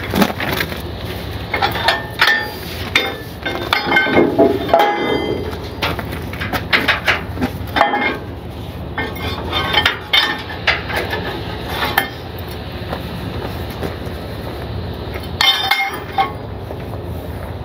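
Steel connecting links and pins on a heavy-haul trailer's neck being hooked up by hand: repeated metallic clinks and knocks, over a steady low rumble.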